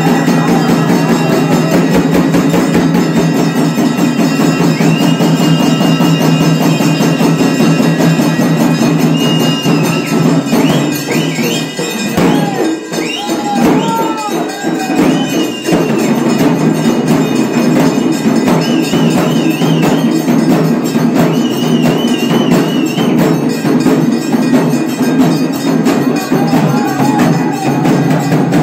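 Brass temple bells rung rapidly and continuously, mixed with loud festival drumming and percussion. Short, high wavering tones come and go over the din in the middle and later part.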